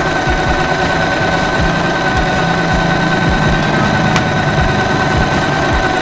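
Singer Simple 3232 portable sewing machine running steadily while stitching an automatic one-step buttonhole: a steady motor whine over fast, even knocks of the needle strokes.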